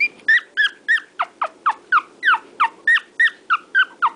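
Shih Tzu puppy crying: a rapid, unbroken run of short, high-pitched yelping cries, about four a second.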